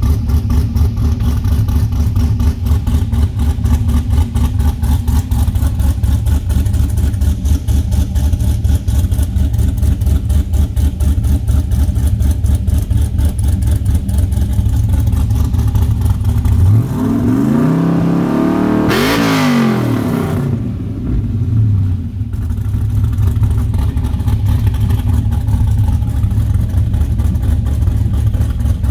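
Crate LS7 V8 with a BTR Stage 4 cam idling with an even, pulsing beat. About seventeen seconds in it is revved once, rising to a peak and falling back to idle within about five seconds.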